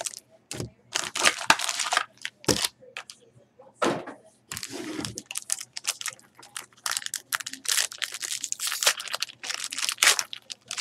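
Foil wrapper of an Upper Deck Black Diamond hockey card pack being torn open and crinkled by hand, in many short, irregular rustles, with the cards shuffling as they are pulled out.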